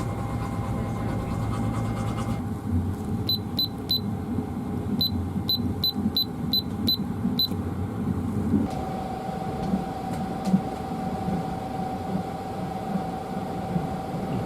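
Steady low rumble of a train carriage while running, with a run of about a dozen short, high electronic beeps in two quick groups starting about three seconds in.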